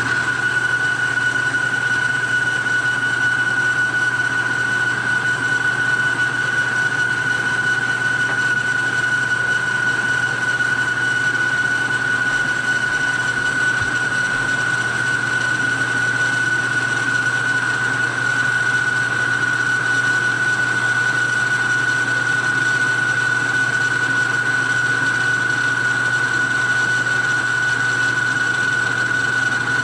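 Grizzly G0776 lathe running on power feed while boring out the bore of a cast iron pulley, taking about a 12-thousandths pass. A steady high whine over a low hum, unchanging throughout.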